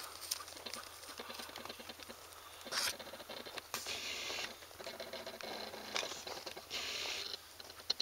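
Faint irregular rustling, crunching and clicking of a hand-held camera being swung about, with a few short bursts of hiss.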